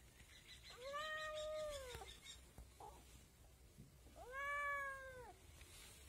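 Kitten meowing twice: two drawn-out meows of about a second each, the pitch rising at the start and dropping away at the end.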